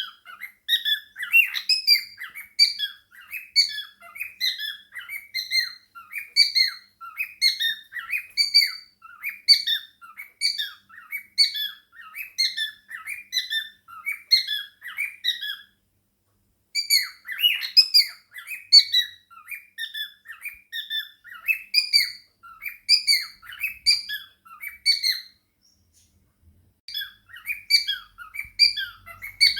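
Small pet parrots chattering in a rapid, continuous run of short chirps and squeaks, several a second. The run breaks off for about a second roughly halfway through and for a couple of seconds near the end.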